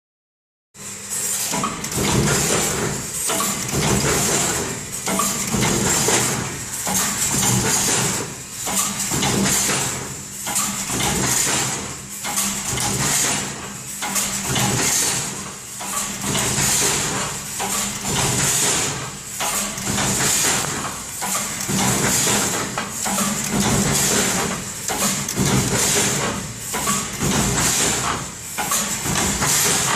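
Argo-3 resistance-welding machine for masonry mesh running through its production cycle: a steady mechanical clatter and hum that swells and falls about every two seconds as the wire is fed and welded.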